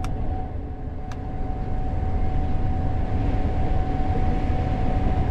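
Gleaner S98 combine running, heard from inside the cab: a steady low drone with a constant high tone over it, growing louder about two seconds in, with a couple of faint clicks.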